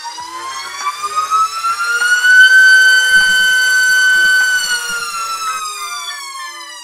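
iFlight XING2 2207 2755KV brushless motor spinning an HQprop Durable 5x4.3x3 three-blade propeller on a thrust stand, throttle ramped from part power to full and back down. The whine rises in pitch for about two and a half seconds, holds loudest at full throttle around 30,000 RPM, then falls in pitch and level near the end.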